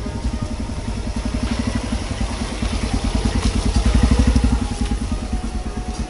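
Small motorcycle engine running at low speed, a rapid steady chugging that swells to its loudest about four seconds in, then eases off.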